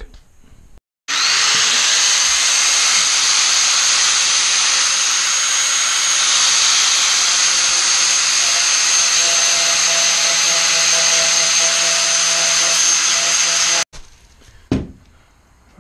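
Angle grinder running steadily with a high whine, grinding down the plastic tabs and ribs inside a 2006 Dodge Charger grille insert. It starts about a second in and cuts off suddenly near the end, followed by a single knock.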